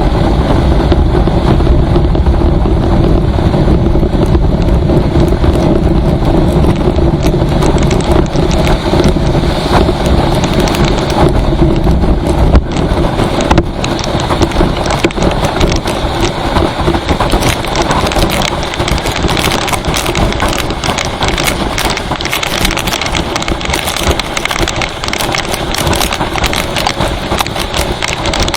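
A vehicle driving at speed on a highway in the rain: steady engine and road noise, wind buffeting the microphone, and rain hitting it.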